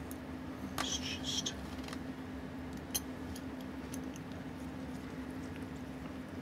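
Light metal clicks and a brief scrape about a second in, with another click about three seconds in, as a partly stripped Seiko 6138 chronograph movement is handled and turned in a metal movement holder, over a steady low hum.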